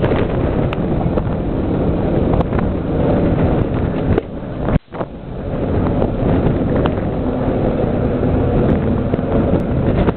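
Drone of a Douglas Dakota's twin radial engines as it flies overhead, mixed with heavy wind buffeting on the microphone. The sound cuts out abruptly for a moment a little before halfway.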